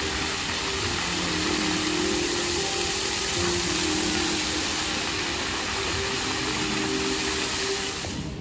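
Plaza fountain's water jets spraying up and splashing onto the paving: a steady rushing hiss.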